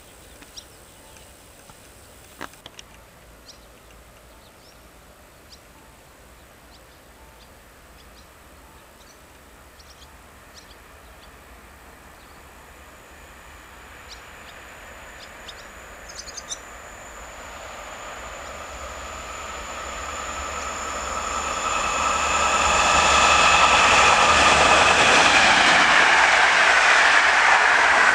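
Passenger train approaching at speed on an electrified line, rising slowly from faint to loud and then rushing past close by. A high steady tone joins about halfway through, and its whine drops in pitch as the train goes by.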